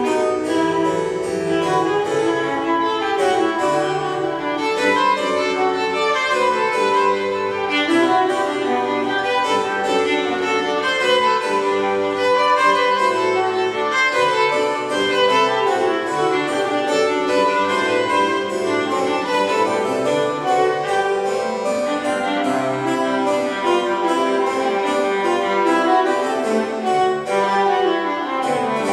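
Viola and pipe organ playing a duet, the bowed viola line over busy, quickly changing organ notes.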